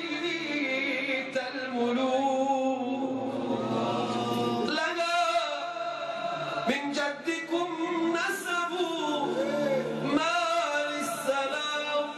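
Male munshid singing a mawwal, a slow, free-rhythm Arabic vocal improvisation with long melismatic runs, over a held low drone.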